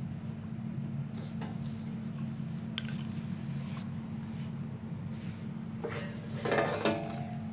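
Small handling sounds of a screwdriver backing screws out of an inverter welding machine's sheet-metal casing, with a sharp click about three seconds in and a cluster of clinks near the end as the loose screws are set down on the concrete floor, over a steady low hum.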